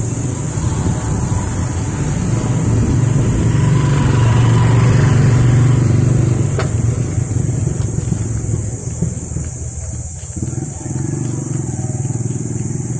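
Motor scooter engine running close by, loudest a few seconds in, then easing off.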